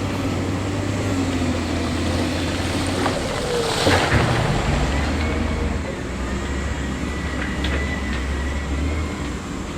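Heavy construction machinery's diesel engine running steadily at low pitch. A short, loud rushing burst comes about four seconds in, after which the engine note drops lower.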